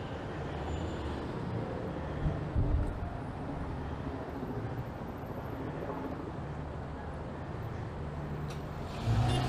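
Road traffic noise: a steady low rumble of passing vehicles, with a brief louder rumble about two and a half seconds in and a louder passing vehicle near the end.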